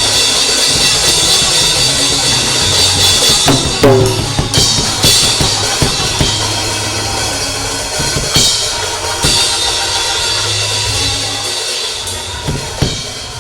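A live church band's drum kit playing loudly under a bass line, with washing cymbals and sharp snare and bass-drum hits.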